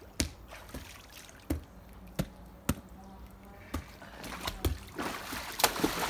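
Several sharp slaps, then water splashing and sloshing in an inflatable pool from about four seconds in, loudest near the end as a man lunges through the water.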